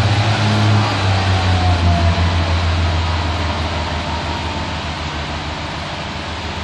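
Class 142 Pacer diesel multiple unit pulling away from the platform, its underfloor diesel engines running hard under acceleration, with a faint falling whine in the first couple of seconds. The engine sound is loudest at first and slowly fades as the unit moves off.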